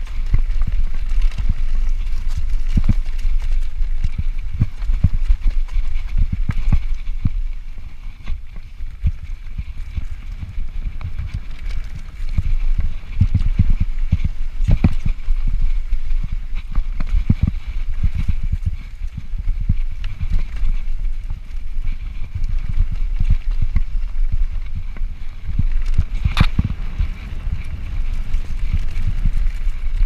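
Full-suspension mountain bike (2017 Yeti SB5) ridden over a rough dirt trail: a steady rumble with frequent knocks and rattles from the tyres, suspension and frame as it crosses rocks and bumps, and one sharper knock about 26 seconds in. Wind rumbles on the chest-mounted camera's microphone.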